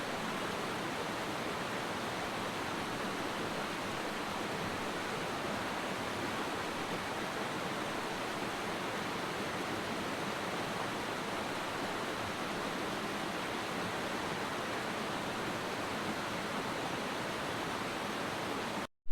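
Creek water rushing and babbling, a steady even hiss at constant level that stops abruptly near the end.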